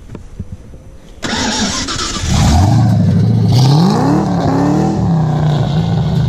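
Ford 5.0 V8 in a Nissan 240SX starting about a second in: it cranks briefly, catches, revs up and down twice, then settles into a steady idle on a cold engine.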